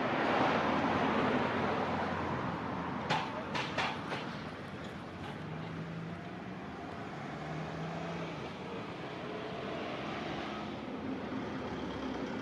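Steady traffic noise that swells as a vehicle goes by, with a few sharp clicks about three to five seconds in.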